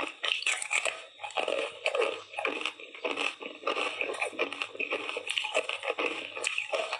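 Ice coated in matcha tea powder being bitten and chewed: a steady run of crisp cracking crunches, several a second.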